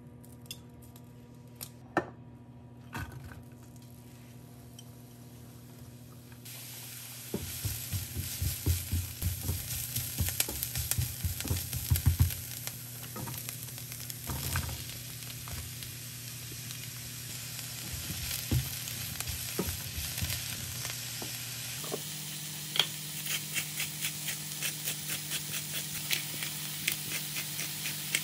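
Food frying in a hot pan. A sizzle sets in about six seconds in, and a utensil stirs and scrapes through it in quick strokes. Before the sizzle there are only a few light clicks.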